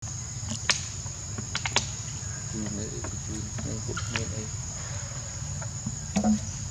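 Steady high-pitched drone of insects, with a few sharp clicks in the first two seconds and some faint short pitched sounds in the middle.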